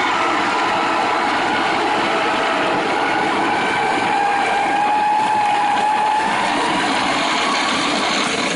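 Corded power drill spinning a roller grain mill, crushing barley as the last of the grain feeds between the rollers: a steady motor whine over a continuous grinding noise. Near the end the hopper runs nearly empty.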